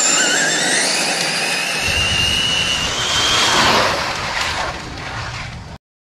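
Two DR10 RC drag cars with 7-turn modified motors launching at full throttle. Their electric motors and drivetrains give a high-pitched whine that climbs sharply at the launch and keeps rising as the cars accelerate, with tyre noise on asphalt. The sound cuts off suddenly near the end.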